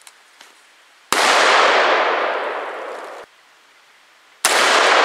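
Two pistol shots about three seconds apart, each a sharp crack followed by a long echo dying away over the wooded hillside; the first echo cuts off suddenly.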